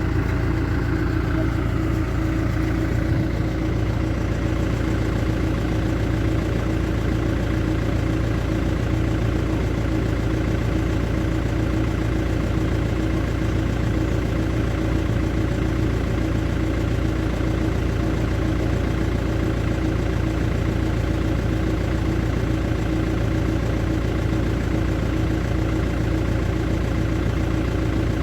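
Motor vehicle engine idling steadily, an even hum that holds one pitch.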